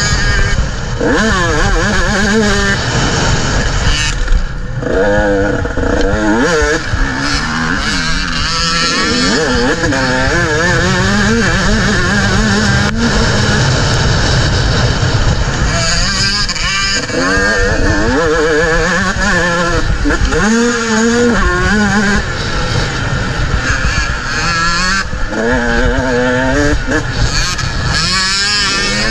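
A 125 cc motocross bike's engine revving up and falling back again and again as it is ridden round a dirt track, with wind rushing on the microphone.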